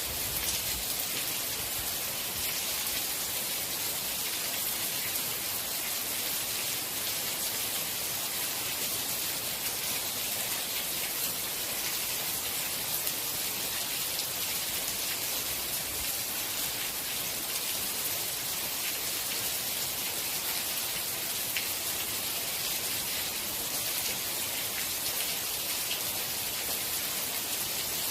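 Steady rain falling, an even hiss with many fine drops pattering on a surface.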